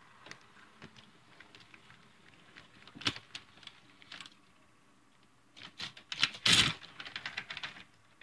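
HO scale model freight train rolling by on sectional track, its plastic-bodied cars' wheels clicking lightly and unevenly over the rail joints. About six seconds in the clicking turns into a louder, denser clatter.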